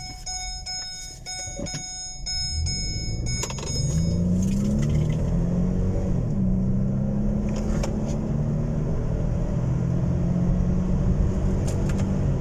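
A Ford Expedition's 3.5-litre EcoBoost twin-turbo V6 accelerates hard under full throttle, its pitch climbing, dropping briefly at a gear change about six seconds in, then running steadily. It pulls smoothly with no misfire or stumble, the worn cylinder-6 spark plug behind the P0306 code having been replaced. A repeating electronic chime sounds for the first few seconds.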